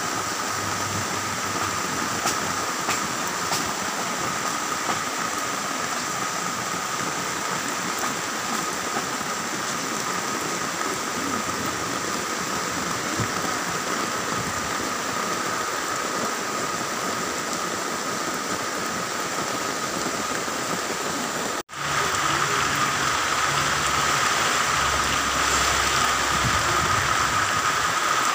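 Steady rain falling during a typhoon. The sound breaks off for an instant about 22 seconds in and resumes a little louder.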